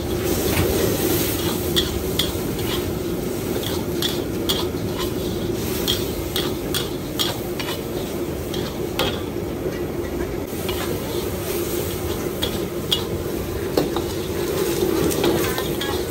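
Fried noodles sizzling in a wok over a gas flame. A long metal ladle clanks and scrapes against the wok again and again as the cook tosses them.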